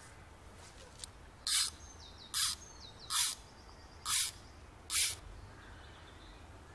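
Fly line being stripped in by hand through the rod guides: five short hissing pulls, about one every 0.8 s. A small bird chirps faintly in between.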